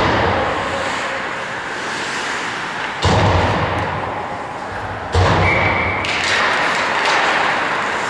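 Ice hockey rink during play: three sudden, loud, echoing thuds, at the start, about three seconds in and about five seconds in, as the rink boards are struck, over a steady hiss of skating.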